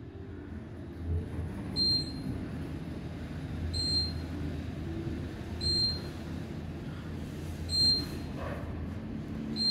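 Otis Series 2 elevator car travelling down, with a steady low hum of the car in motion. A short high beep sounds about every two seconds, the car's floor-passing tone.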